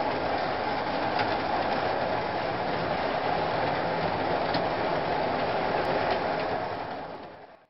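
Model railway trains running on the track: a steady whirring rumble of small motors and wheels, with a few faint clicks as wheels pass over rail joints. The sound fades out near the end.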